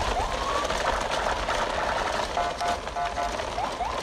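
Plastic toy trucks rolling over gravelly ground, a steady crunching, rattling noise. Over it, a short phrase of beeping dashes and rising chirps repeats about every three and a half seconds.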